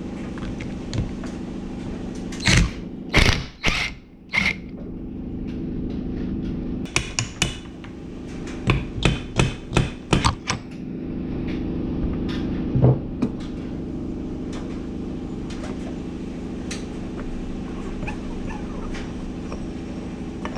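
Hammer blows on metal, working a part loose on a Kawasaki KX65 engine: a few heavy knocks, then a quick run of about eight sharp strikes, then one more, over a steady low hum.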